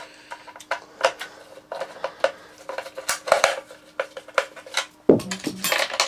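Irregular metallic clicks and clinks of a screwdriver and small steel parts on the metal underside of a Hoover Senior upright vacuum cleaner as a spring is fitted, with a quick cluster of knocks about five seconds in.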